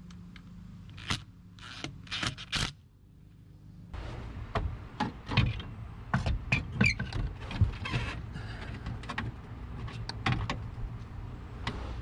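Scattered clicks, knocks and rattles of metal and plastic parts being handled while a truck steering column is fitted, sparse at first and busier from about four seconds in.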